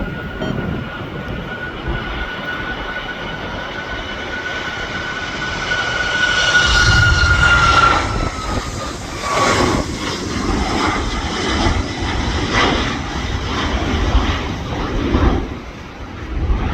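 Jet airliner passing close by: its engines' high whine grows louder, then drops in pitch as it goes past about eight seconds in. A gusty rumble of engine noise and wind on the microphone follows.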